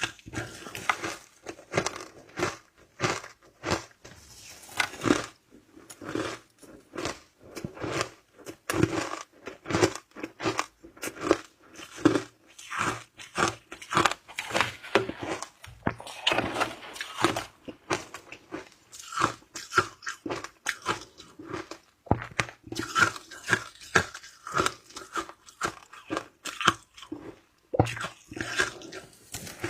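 Shaved ice being bitten and chewed close to the microphone: quick, irregular crunches, several a second, without pause.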